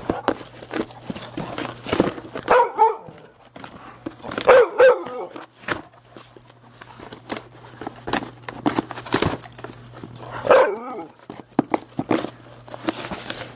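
A dog barking in short bursts, with two barks close together about four and a half seconds in, amid clicks, knocks and rustling from a cardboard box being handled.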